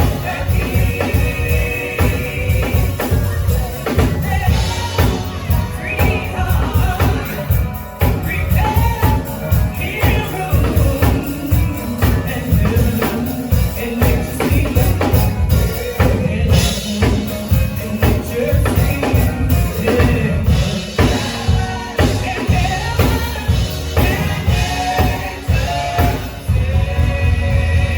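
Live band music with a singer: an upbeat song over a steady drum beat, with percussion.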